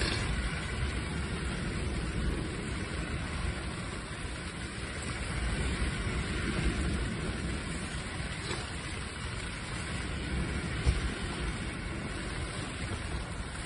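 Steady rain falling on a fishing shelter's fabric canopy, with a low rumble of wind.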